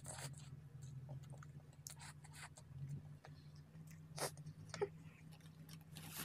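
Close-miked mouth sounds of someone eating instant noodles: a mouthful slurped in at the start, then chewing with soft wet clicks and smacks and two sharper clicks a little past the middle, over a faint steady low hum.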